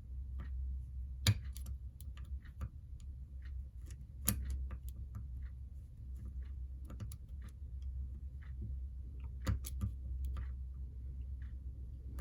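Small irregular clicks and ticks of a screwdriver and small screws being worked while fitting a cylinder onto a model locomotive, with a few louder clicks among them. A steady low hum runs underneath.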